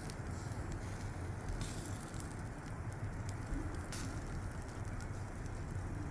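Charcoal fire crackling under grilling fish, over a steady low rumble, with a couple of sharper crackles about two and four seconds in.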